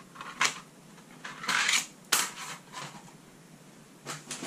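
Hard plastic die-cutting plates being handled and set aside, with a few sharp clacks and a brief scrape.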